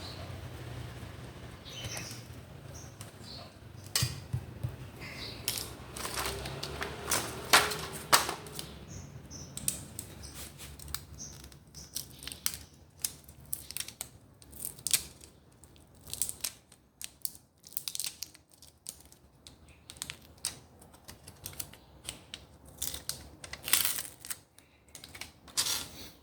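Tools and packaging of a tire plug repair kit being handled: many quick, irregular clicks, taps and rustles of small hard plastic and metal parts. A low hum runs under the first half.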